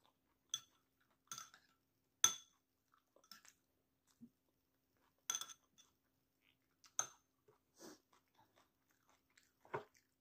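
Close-up chewing and crunching while eating kwek-kwek, battered deep-fried quail eggs. About eight short, sharp crunches and clicks come every second or so, some with a slight ringing to them.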